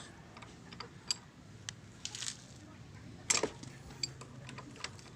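Irregular small clicks and metallic clinks of hand tools and parts being handled on a motorcycle, a few with a short ring, and a louder knock about three seconds in.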